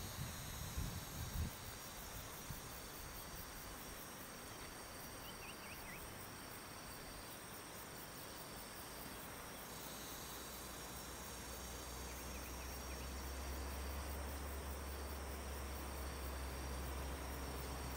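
Insects droning in steady high-pitched layers, with a few short bird chirps about five seconds in and a few low thumps at the start. From about two-thirds of the way through, the low rumble of an approaching Alsthom diesel-electric locomotive grows beneath them.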